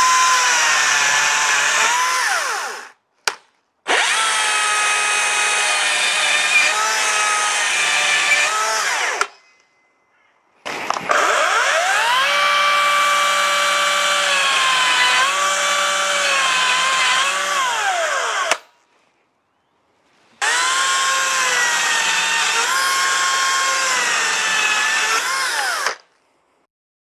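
Cordless electric chainsaws cutting through softwood pine blocks one after another, in four separate cuts with brief silences between them. Each is a high motor-and-chain whine that revs up, drops in pitch as the chain bogs into the wood, and rises again as it cuts free.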